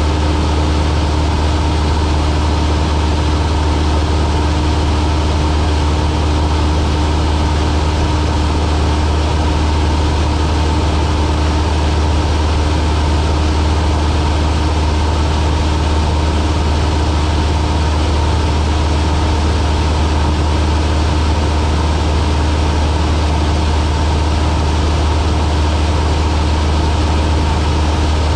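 Cessna light aircraft's piston engine and propeller droning steadily in flight, a loud, even, deep hum that does not change.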